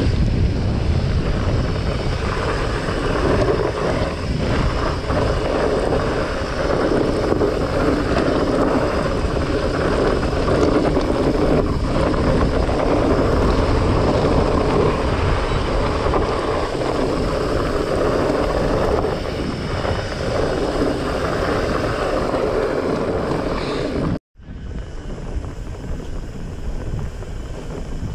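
Wind rushing on an action camera's microphone, mixed with the fat tyres of a Trek Farley 9.6 fatbike rolling over a dirt and gravel trail at speed. The sound cuts out for a moment a few seconds before the end, then goes on quieter.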